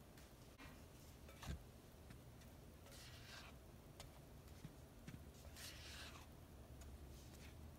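Silicone spatula stirring dry flour and cocoa powder in a glass bowl: faint soft scraping swishes a couple of seconds apart, with a light knock about a second and a half in.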